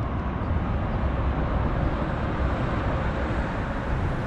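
Steady rumble of road traffic crossing highway overpasses.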